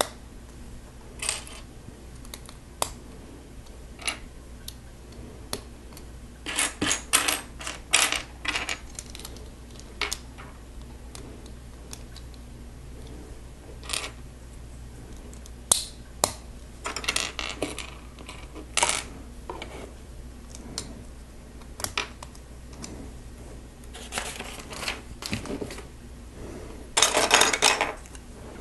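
Plastic Lego pieces clicking and rattling as they are handled and pressed together: scattered single clicks, with busier stretches of clicking about seven seconds in, around eighteen seconds, and near the end.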